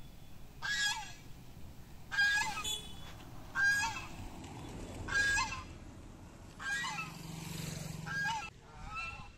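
Domestic geese honking, about six short calls spaced roughly a second and a half apart.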